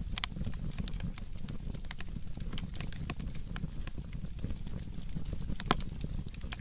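Burning firewood crackling with irregular sharp pops, one louder pop near the end, over a low steady rumble.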